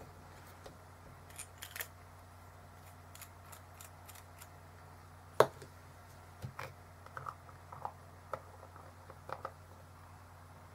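Small clicks and taps of a fountain pen, an ink bottle and its cap being handled and set down on a desk, with one sharp knock about halfway through.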